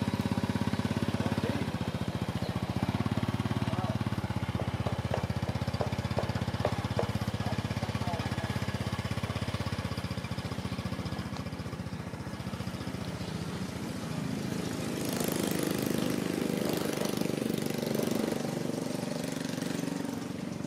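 Small step-through motorbike's single-cylinder engine idling with a steady low putter, then running as the bike pulls away and rides off. A broader rushing hiss joins it about three-quarters of the way through.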